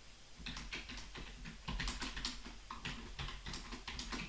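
Typing on a computer keyboard: a quick, irregular run of key clicks as a sentence is typed.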